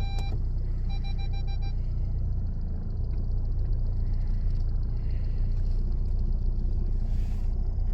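Opel Movano 2.3 biturbo four-cylinder diesel running under way, a steady low rumble of engine and road heard from inside the cab as the van pulls out onto the highway. A short pulsed beeping sounds at the start and again about a second in.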